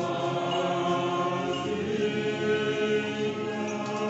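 Orthodox liturgical chant: voices holding long, sustained notes, with the melody shifting about two seconds in.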